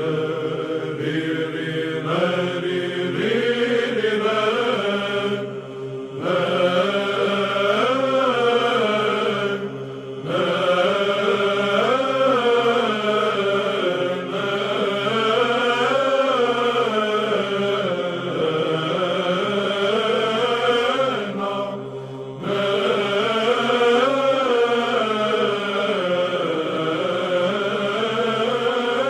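Byzantine chant: a slow, melismatic vocal line sung over a steady held drone (the ison), with short breaks between phrases.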